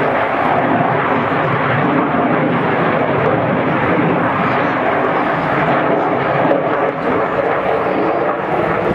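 Eurofighter Typhoon T1 jet in flight overhead: the loud, steady rushing roar of its twin Eurojet EJ200 turbofan engines.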